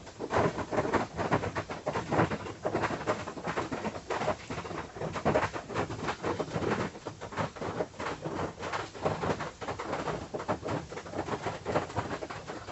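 Rain drumming on a tin roof: a dense, irregular patter of drops striking the metal, continuing without a break.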